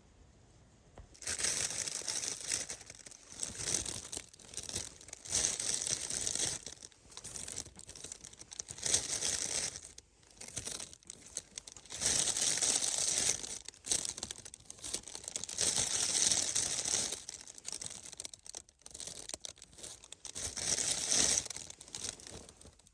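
Snow crunching in repeated bursts a second or two long, with short pauses between them.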